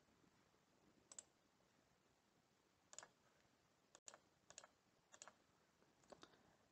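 Faint computer mouse clicks, single and in quick double-click pairs, scattered through otherwise near-silent room tone.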